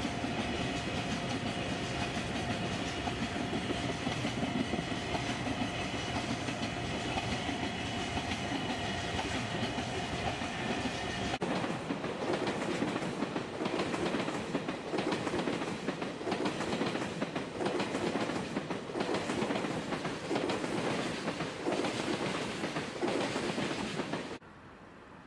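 Freight train of tank wagons rolling through a level crossing, wheels and cars rumbling, with the crossing's warning bell ringing steadily. About eleven seconds in this gives way to a container freight train rolling past, its wheels clattering over the rail joints, and the sound drops to a quieter background about a second before the end.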